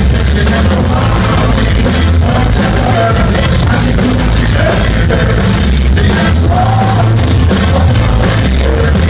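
Live rock band playing loudly: heavy bass, drum kit and guitars, with some singing, recorded from the audience.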